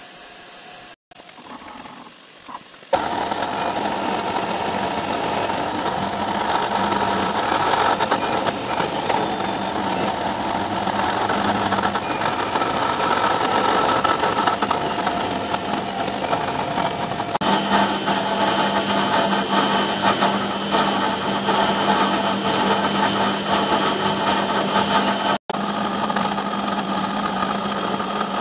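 CNC milling machine cutting a pocket in an aluminium plate with a small end mill. A quieter hiss at first, then from about three seconds in the louder, steady noise of the spindle and cutter working through the metal.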